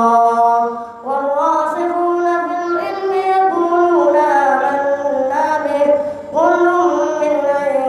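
A young boy's voice reciting the Quran in a melodic chanted style while leading congregational prayer, through a microphone. The recitation moves in long held, gliding phrases, with short breaths about a second in and about six seconds in.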